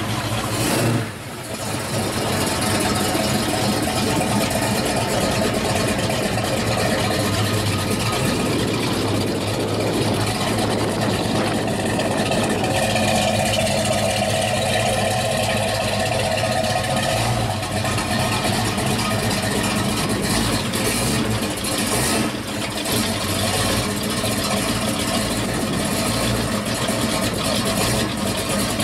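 1968 Dodge Dart GTS's V8 engine running through its dual exhaust, idling and moving at low speed with steady engine note.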